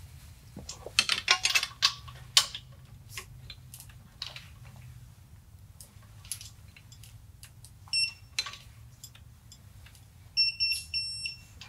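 Digital torque wrench beeping as the transmission bolt is tightened to its 55 ft-lb spec: a short beep about eight seconds in, then a string of beeps near the end, the wrench signalling that the set torque is reached. About a second in, a burst of clicks and metal clatter as the tool is handled.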